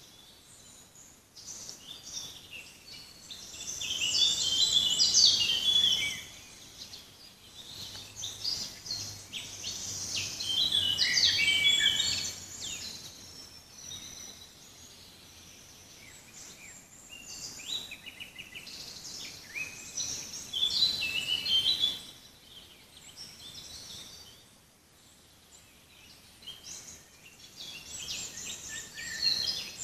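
Songbirds singing in a forest: bursts of rapid, high chirping phrases that come and go, with quieter gaps of faint background between them.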